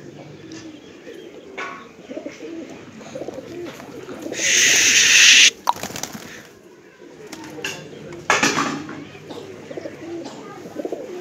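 Flock of domestic high-flyer pigeons cooing, a low warbling that goes on throughout. A loud rush of noise lasting about a second comes a little before the middle, and a shorter one comes later.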